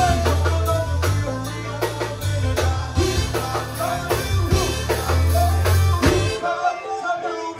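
Zydeco band playing live, with a steady drum-kit beat over low bass notes; the bass drops out briefly about six seconds in.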